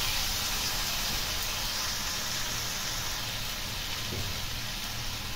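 Boiled chana dal sizzling in hot oil and spice masala in a kadhai: a steady hiss that eases slightly toward the end.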